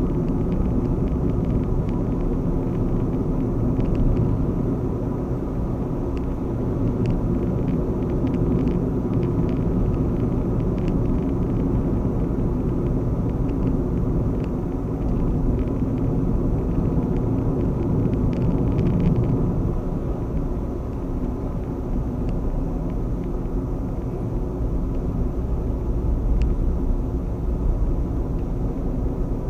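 Steady low rumble of a car driving on the road, tyre and engine noise heard from inside the cabin.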